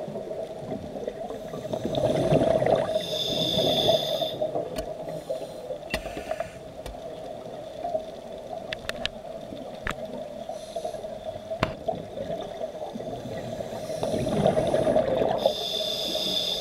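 Scuba diver breathing through a regulator underwater: two breaths, each a rush of exhaled bubbles followed by a high hissing draw through the regulator. A few sharp clicks fall between the breaths.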